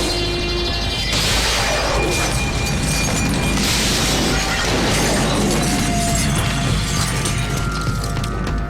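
Film fight-scene soundtrack: background score music under loud crashes and smashing hits, with a bright surge of crashing noise about a second in and again about four seconds in.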